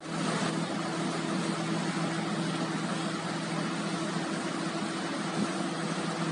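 Aquatic weed harvester boat's engine running steadily, a constant hum with a steady low tone over a noisy rush.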